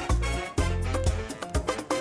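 Background music with a steady beat, a bass line and a plucked melody.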